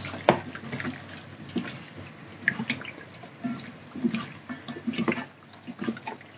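Wet squelching and small clicks of hands rubbing a sticky sauce marinade into raw chicken wings, in irregular short bursts.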